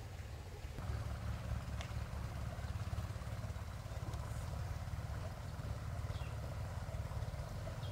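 A small engine running steadily with a low, rapidly pulsing rumble that grows fuller about a second in, with a few short high chirps over it.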